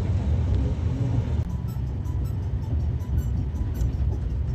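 Low, steady rumble of a moving express train's coach, heard from inside, with an abrupt change in the sound about a second and a half in.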